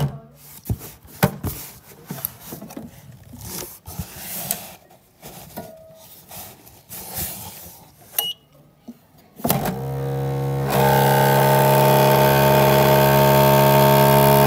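Clicks and knocks of the YG-100 amalgamator's lid and capsule arms being handled, with a short beep about eight seconds in. About nine and a half seconds in the amalgamator's mixing motor starts, rises over about a second, and then runs loud and steady with a buzzing hum, stopping at the end.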